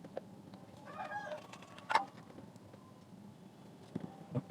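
A chicken clucking faintly in the background, one short call about a second in. A sharp tap about two seconds in and a couple of small clicks near the end.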